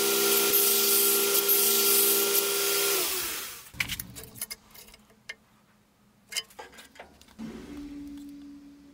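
A workshop power tool runs with a steady hum and a high grinding hiss, then winds down and stops about three seconds in. A few sharp clicks and knocks follow, and near the end a motor spins up to a steady lower hum.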